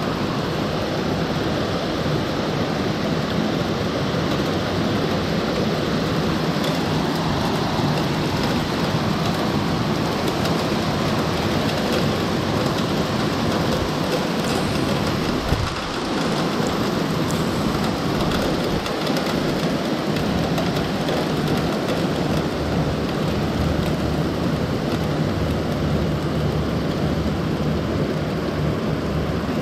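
Heavy downpour of rain mixed with hail hissing steadily on trees and surfaces, with a deep rumble underneath.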